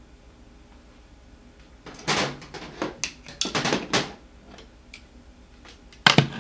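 Tire spoons clanking and scraping as they are handled and worked in between a scooter tire and its rim. About two seconds of quiet comes first, then a run of clanks and scrapes, and two sharp knocks near the end.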